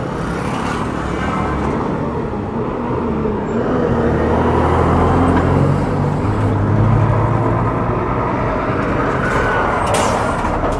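Street traffic: vehicles passing with a steady noise of engines and tyres. A large engine's low hum builds about four seconds in and is loudest in the middle before easing off.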